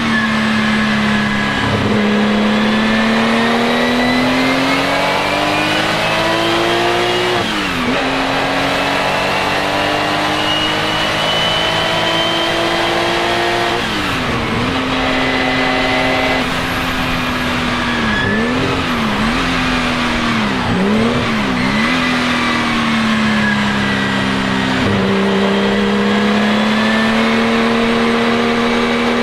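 Porsche 935 K3's turbocharged flat-six racing engine running continuously under load. Its pitch climbs and falls sharply twice, as at upshifts. Then it holds steady with a few quick dips and wavers, drops once more, and climbs slowly again.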